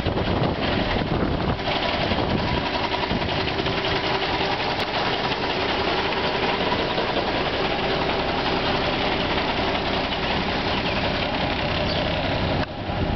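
Heavy truck engine of a 1986 GMC Brigadier feed truck idling steadily.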